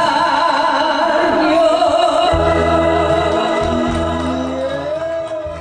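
Woman singing a Korean trot song into a microphone, holding one long note with vibrato over the accompaniment. The music fades out near the end.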